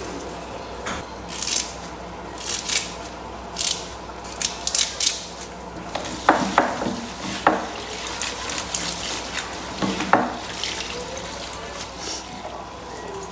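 Fresh curry leaves rustled by hand and rinsed under a running kitchen tap in a plastic colander in the sink, with a few sharp knocks of the colander in the middle and a steady faint hum beneath.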